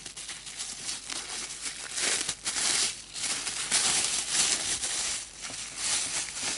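Thin clear plastic wrapping crinkling in irregular bursts as hands pull it off a roll of green floral tape; the rustling is loudest in the middle.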